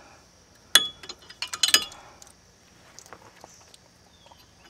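Metal clinks and clicks from tools and brake parts at a car's front wheel hub as the brake rotor is taken off: one sharp ringing clink about a second in, a quick cluster of clinks soon after, then a few faint ticks.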